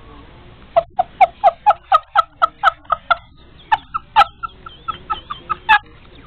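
A woman giggling: a quick run of short, high laughs at about four or five a second, then a pause and a few scattered giggles.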